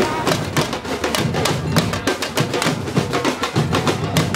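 Street drum band playing a steady rhythm of drum strikes.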